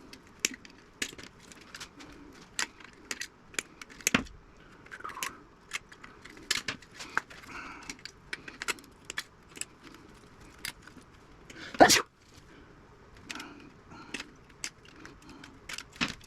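Hand tools and small metal parts clicking and clinking as a radio's steel tuner assembly is cut and pried apart, with one sharper, louder clack near the end.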